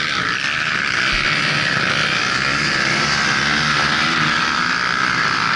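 Sport quad (ATV) engines running steadily, with a strong, even hiss over them.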